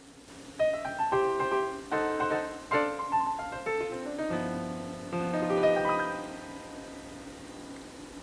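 Background piano music: a melody of separate notes that starts about half a second in, with a chord held a little past the middle.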